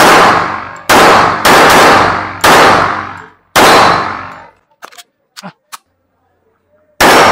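A 1911 .45 ACP pistol firing five shots: four in quick succession over the first four seconds, then a pause broken by a few small clicks, and one more shot near the end. Each shot rings out with a long decaying tail.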